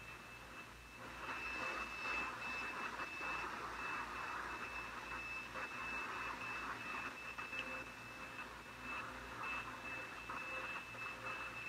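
Portable FM radio tuned to 101.9 FM, giving static hiss with a thin, steady high whine through it. The hiss grows louder about a second in.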